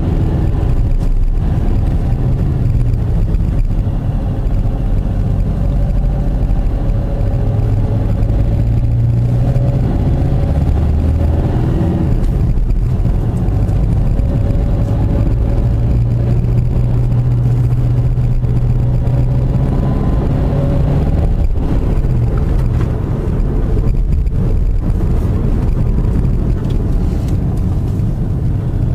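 Car engine and tyre noise heard from inside the cabin while driving a winding road, the engine note rising and falling as the car speeds up and slows for bends.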